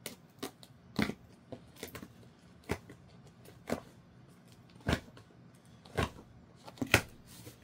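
Sharp clicks and knocks from objects being handled by hand, about one a second, the loudest near the end.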